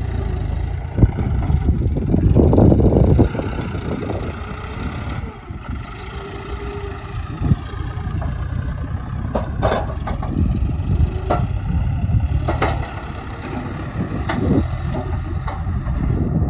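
John Deere 5105 tractor's diesel engine running under the load of its hydraulics as it tips a trolley of manure, heavier for the first three seconds, then steadier. A few sharp knocks come in the second half.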